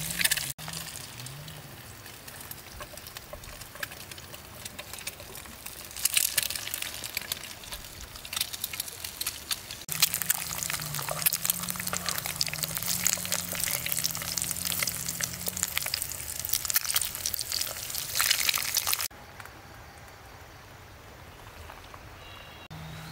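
An egg frying in oil in a pan over a wood fire: a steady crackling sizzle that grows louder about ten seconds in and stops suddenly near the end, leaving a much quieter background.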